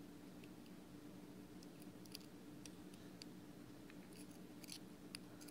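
Faint, scattered clicks and scrapes of a thin metal tool against the metal Joyetech Delta II coil head as the coil is nudged back to the centre, over a steady low hum.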